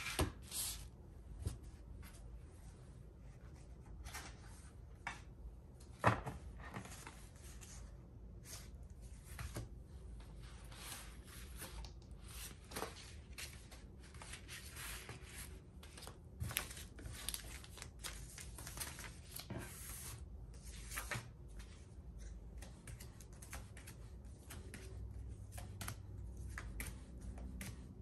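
Padded bubble mailers, clear plastic sleeves and paper envelopes being handled on a desk: repeated rustling and crinkling with short scrapes and taps. There is one sharper knock about six seconds in.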